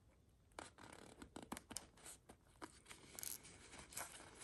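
Faint scattered rustling and light clicks of a leather watch strap being worked off a plush leather watch pillow.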